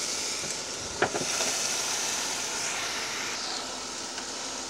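Venison loin sizzling on a George Foreman contact grill: a steady hiss, with a single click about a second in. The hiss thins a little near the end.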